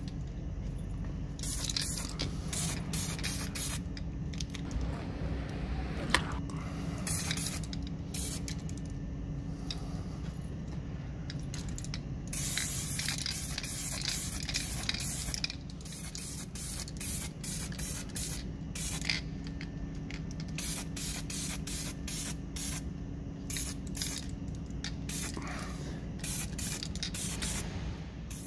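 Aerosol spray can hissing in many short bursts, with one longer spray about halfway through, as a coat of paint goes onto skateboard truck parts. A steady low hum runs underneath.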